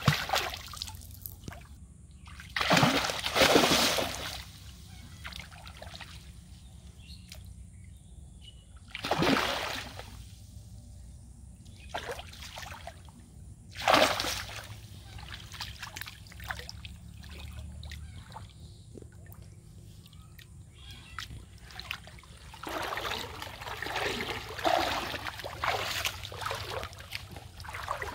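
Water splashing as large fish thrash in a cast net in shallow pond water: separate loud splashes near the start, around three, nine and fourteen seconds in, then a longer stretch of continuous splashing near the end.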